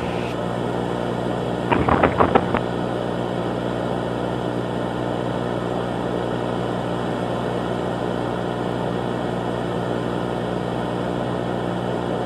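Steady electrical-sounding hum with a hiss over it, with a brief cluster of clicks or knocks about two seconds in.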